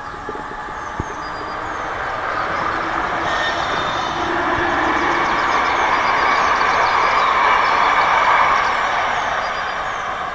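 Electric locomotive hauling a passenger train past at speed: the rolling noise of wheels on rail swells as it approaches, is loudest about eight seconds in as the carriages go by, then begins to fade.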